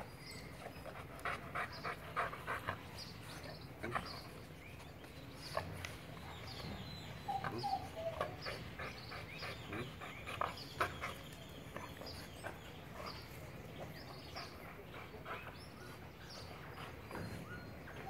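Dog panting in runs of short, quick breaths.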